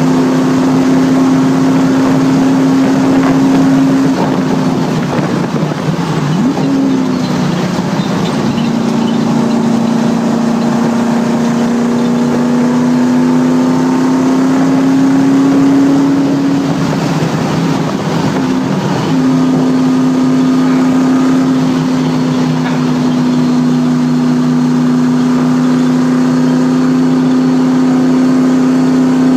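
A race car's engine, heard from inside the cabin, pulls hard on a track lap at a high, steady note. The pitch drops and swoops about five to seven seconds in as the driver lifts and shifts for a corner, then climbs slowly. It dips again about seventeen seconds in and holds steady after that.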